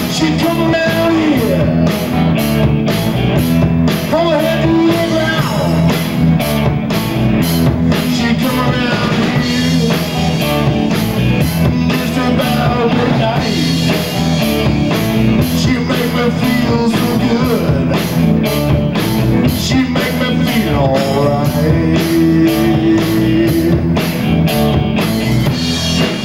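Garage rock band playing live: a Tama drum kit keeping a steady cymbal beat under electric guitars.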